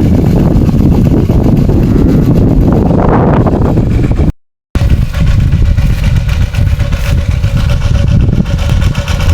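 Engine of a water pump running steadily, loud and close, draining the pond. Just before the middle it cuts to silence for a split second and comes straight back.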